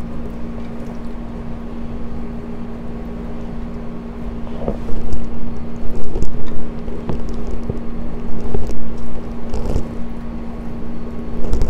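A steady low hum under rumbling noise that grows louder and more uneven about five seconds in, with a few soft knocks.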